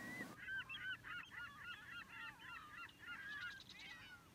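A flock of birds calling: many short, hooked calls overlapping in quick succession, starting abruptly a moment in.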